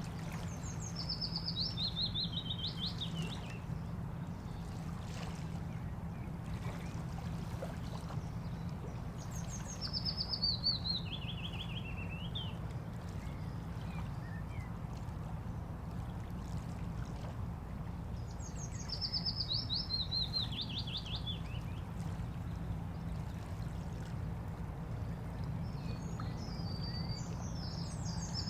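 A songbird repeating a short song, a quick run of notes stepping down in pitch, about every nine seconds, four times. Under it is a steady low rumble of water at a bank.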